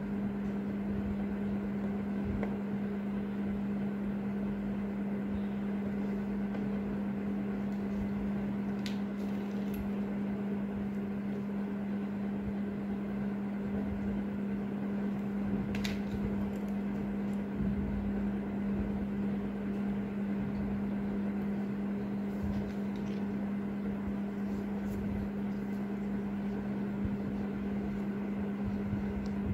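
A steady low hum over an even background of noise, like a fan or small motor running. A couple of faint small clicks come through, about nine and sixteen seconds in.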